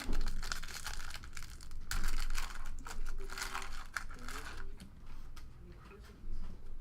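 Baseball card pack wrapper being torn open and crinkled, in rustling bursts over the first few seconds, then quieter.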